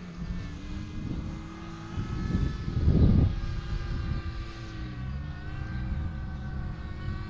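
Radio-controlled model airplane's motor and propeller running with a steady drone whose pitch dips and rises a few times. About three seconds in, it swells to a loud rush.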